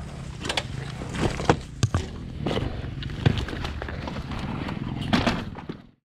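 Dirt bike engine idling with a steady low hum, while a stuck dirt bike is manhandled among rocks: several sharp knocks and clatters, the loudest about a second and a half and three seconds in, before the sound fades out at the end.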